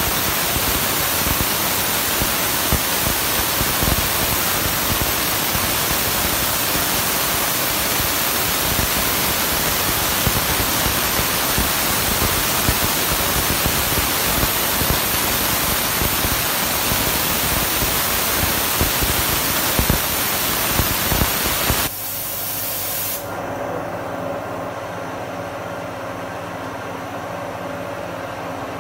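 CNC machining center running its program, with a loud steady hiss of coolant spraying over the end mill and workpiece. The spray cuts off suddenly about 22 seconds in, leaving a quieter steady machine hum with a few fixed tones.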